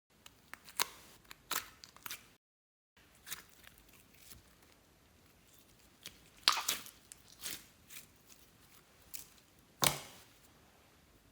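Slime being worked by hand, giving scattered sharp pops and crackles, the loudest about six and a half and ten seconds in.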